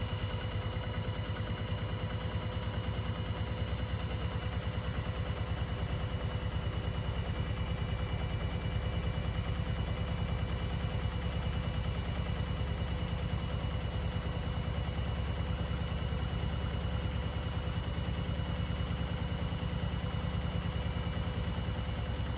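CNC milling machine spindle running steadily with a fly cutter, machining the deck surface of an aluminium cylinder head. Several steady high whines sit over a fast, even pulsing from the cutter.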